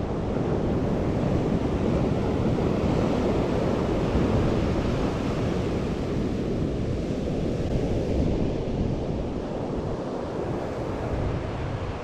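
Surf washing onto a beach with wind buffeting the microphone, a steady rushing noise that swells and eases slowly.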